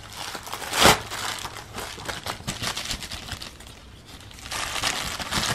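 Plastic Amazon bubble mailer crinkling as it is handled and opened, with a brief, louder burst about a second in and denser crinkling near the end.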